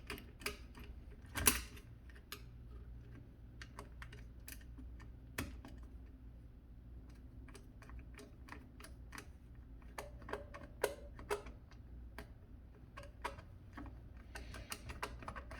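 Irregular small metal clicks and taps of a screwdriver working the screws of a garbage disposal's cable connector, with sharper clicks about a second and a half in and again about five seconds in, over a low steady hum.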